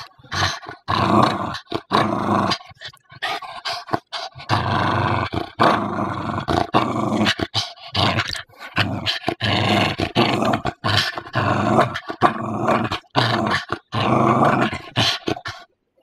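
Small dog play-growling while tugging on a rubber ring toy, in repeated growls with brief breaks between them.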